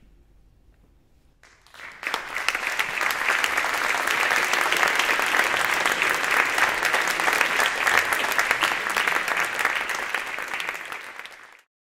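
Concert audience applauding: near silence, then clapping starts about two seconds in and continues dense and steady until it cuts off abruptly near the end.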